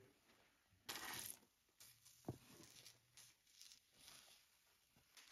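Faint scraping and rustling of a silicone spatula stirring and folding a sticky marshmallow mixture in a pan, with a short rustling rush about a second in and a sharp click a little after two seconds.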